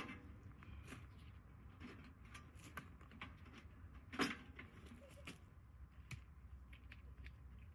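Quiet handling noises: scattered light clicks and rustles, with one louder knock about four seconds in.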